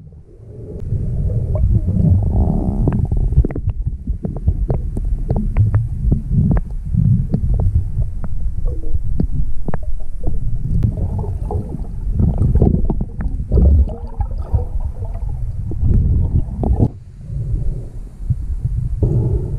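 Underwater sound in shallow seawater: a low, muffled rumble of moving water with many small sharp clicks and crackles scattered through it.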